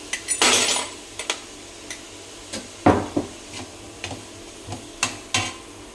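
Clinks, clicks and knocks of kitchen utensils against pots and containers while seasoning a pot of soup. There is a short noisy rush about half a second in and a louder knock near the middle.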